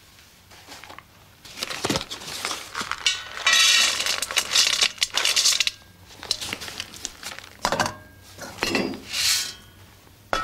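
Crinkling and rustling of a cardboard-and-paper suet packet as shredded suet is shaken out onto a scale pan, loudest in the middle. Near the end the suet is tipped into a bowl of flour.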